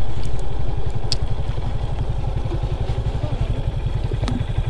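Motorcycle engine running at low revs with a steady low firing beat, and a light click or two over it.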